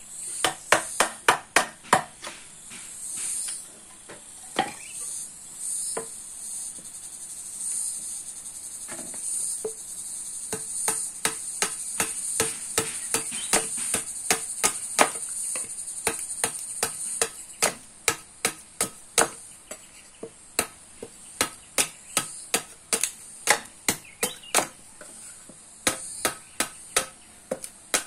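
Runs of sharp knocks, several a second, with a steady high insect drone behind them.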